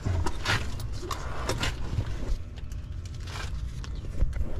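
Handling noise inside a heat pump's outdoor cabinet: a few short scrapes and rustles of hands, wiring and tools against sheet metal, over a steady low rumble.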